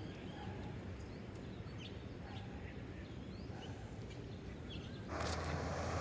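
Quiet ambience with a steady low hum and a few faint, short bird chirps. About five seconds in it switches to a louder, even outdoor hiss with a low rumble.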